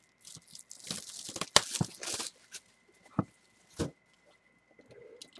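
Plastic shrink wrap being ripped and crinkled off a cardboard box in a few quick tears, followed by two sharp taps as the box is handled.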